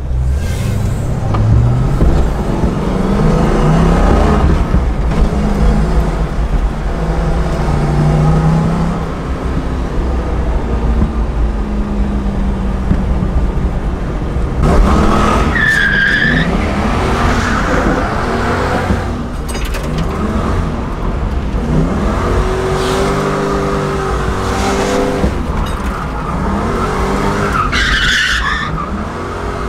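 1995 Ford Mustang GT's V8 revving up and down hard through a drift lap, heard from inside the cabin, with the tyres squealing as the car slides, most sharply about halfway through and again near the end.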